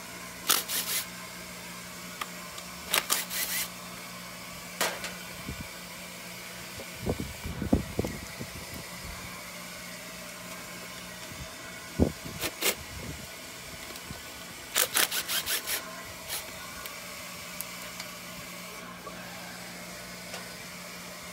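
Cordless power driver run in several short bursts, spinning out the bolts of an outboard's intake manifold, with knocks of tools and metal parts being handled in between. A steady low hum runs underneath.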